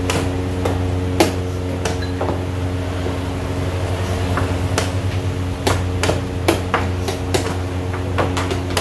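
Sharp clicks and knocks of plastic chess pieces set down on the board and chess clocks being pressed, one about a second in and a quick string of them in the second half, over a steady low hum.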